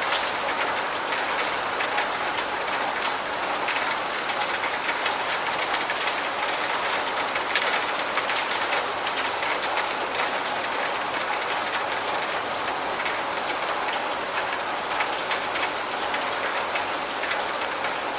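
Steady rain, an even hiss with many small drop hits ticking through it and no let-up.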